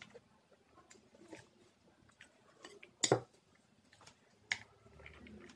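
Small clicks and taps of fingers and tableware on a ceramic plate, with one sharp clink about three seconds in as a steel bowl is knocked against the plate to tip rice out, and a smaller knock about a second and a half later.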